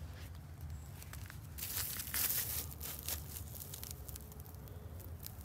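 Needle ice crunching and crackling: a cluster of crisp, high crackles from about one and a half to three seconds in, over a low steady rumble.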